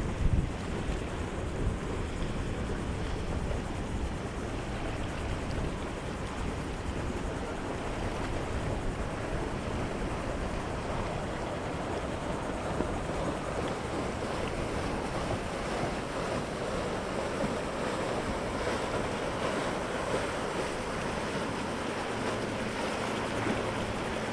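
Wind blowing across the microphone over the steady rush of waves and water.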